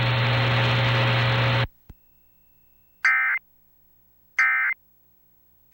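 Emergency Alert System end-of-message data code: two short, identical screechy digital bursts about a second and a half apart, marking the end of the alert. Before them, the radio feed's hiss and hum cut off abruptly about a second and a half in, followed by a click.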